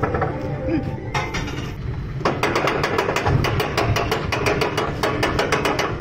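Roller coaster car rumbling and clanking as it sets off. About two seconds in, a rapid, even clicking starts at about five clicks a second, the ratchet-like clatter of the car being pulled along the track.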